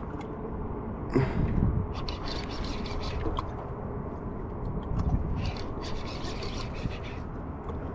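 Fishing reel being cranked, its gears and ratchet clicking in repeated stretches, while a hooked sturgeon is reeled in.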